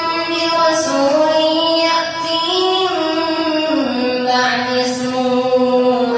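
A boy's high voice reciting the Quran in a slow, melodic chant, holding long notes that slide and step in pitch, dropping lower about four seconds in.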